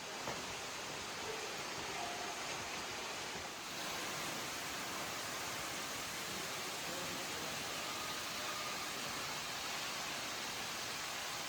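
Steady rush of falling water from Yahoo Falls, a tall waterfall, growing a little louder and brighter about four seconds in.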